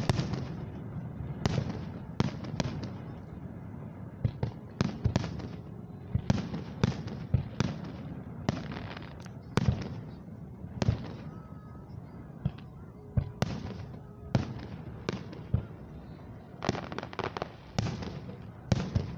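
Aerial fireworks shells bursting in quick, irregular succession: sharp bangs about one to two a second over a continuous low rumble.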